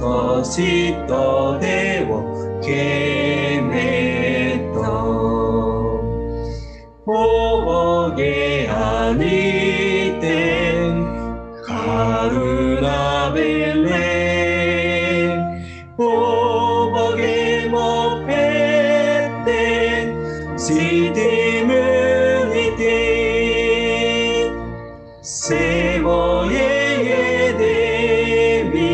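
A man and a woman singing a hymn in Sinhala together over an accompaniment of held chords, with short breaks between phrases.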